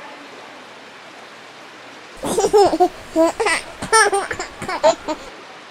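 High-pitched laughter, starting about two seconds in and lasting about three seconds, in short breathy peals.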